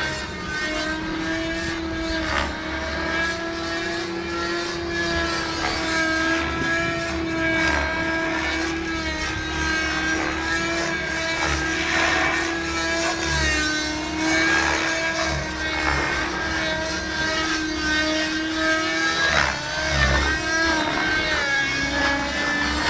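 Radio-controlled model aircraft's O.S. 50 glow engine running at high revs in aerobatic flight, a steady whine whose pitch dips briefly a few times as the throttle is worked.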